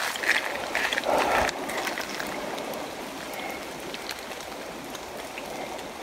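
Shallow woodland stream trickling steadily, with a couple of louder noises in the first second and a half.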